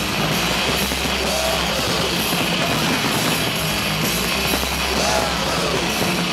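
Loud rock music from the fireworks show's sound system, with a large crowd cheering and yelling over it.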